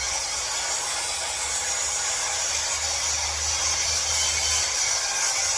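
A power tool running steadily, a continuous high-pitched whirring hiss with no breaks.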